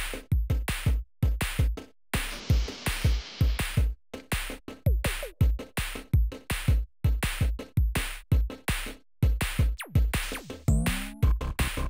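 Electronic background music with a steady drum-machine beat, cut by short breaks, and a sweeping pitch glide near the end.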